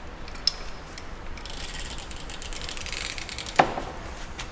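Rapid mechanical clicking, like a ratchet, for about two seconds, then a single sharp knock.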